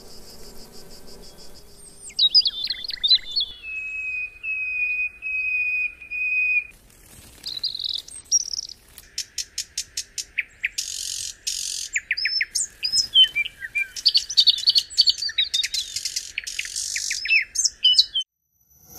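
Birds chirping and whistling amid buzzing and trilling insects, a layered nature soundscape with many short calls and a long steady high trill; it cuts off abruptly near the end.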